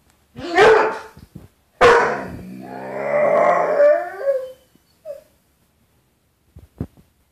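A dog gives one short bark, then a long, wavering howl-like 'talking' call that slides down and trails off. It is vocalizing at its own reflection in a glass door, which it takes for another dog.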